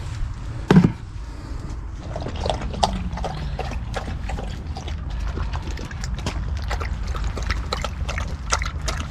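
A dog lapping water from a bowl: quick wet laps, a few a second, with a short louder knock just under a second in.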